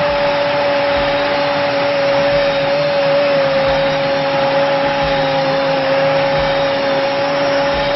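A loud, steady droning tone over a hiss, holding one pitch without a break.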